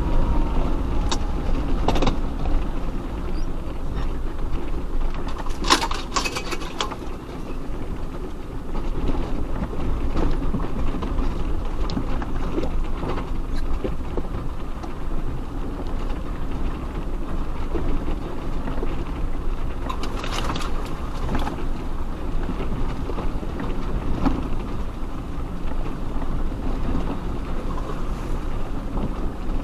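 Off-road vehicle crawling over a rough track: a steady low engine rumble with scattered knocks and rattles, the loudest clusters about six seconds in and again around twenty seconds in.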